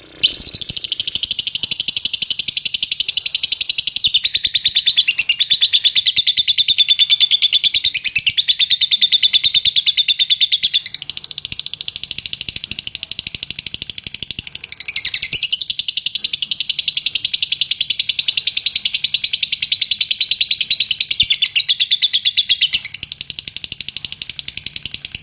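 Fischer's lovebird singing a long, unbroken ngekek: a loud, rapid, high chattering trill kept up for over twenty seconds. It dips in loudness twice before picking up again.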